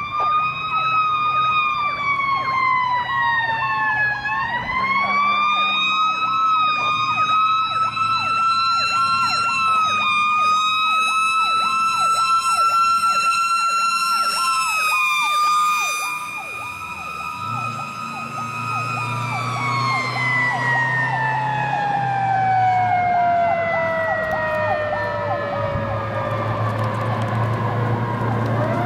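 Fire trucks going by with sirens sounding: one siren wails, its pitch rising and falling, then glides slowly down over several seconds; a second siren pulses about twice a second and stops about halfway through. The low drone of a Detroit Diesel 8V two-stroke V8 comes up under the sirens in the second half, and a siren winds up again right at the end.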